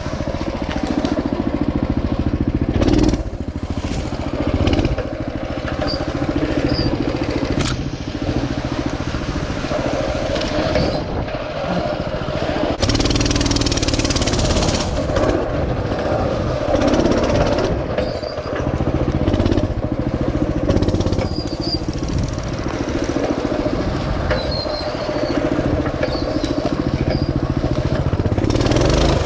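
Mini bike's small engine running and revving up and down as it is ridden, with a brief rush of noise about halfway through.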